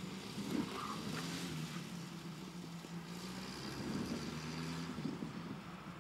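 An engine running steadily, a low drone that wavers slightly in pitch.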